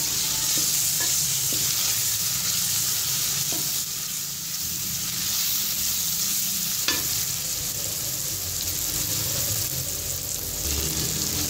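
Onion-and-tomato masala sizzling in hot oil in an aluminium karahi while a wooden spoon stirs and scrapes through it, with one sharper click about seven seconds in.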